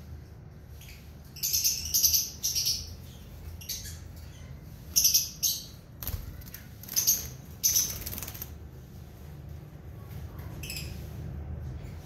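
Caged lovebirds giving short, shrill chirps in scattered clusters, with a brief flutter of wings about six seconds in as one bird flies across the cage.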